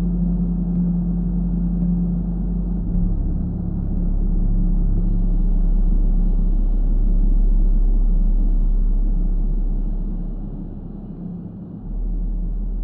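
Synthetic brown noise with a steady low 174 Hz tone and a deep hum beneath it, for a sleep and bilateral-stimulation track. The deep hum swells in the middle, sags briefly near the end and comes back, with faint soft ticks now and then above.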